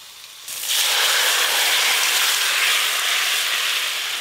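Boiled vegetables and their cooking water poured into hot fried spice paste in a wok, setting off a loud, steady sizzling hiss that starts about half a second in and cuts off near the end.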